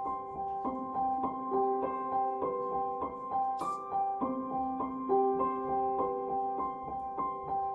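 Background piano music, a gentle melody of evenly paced notes.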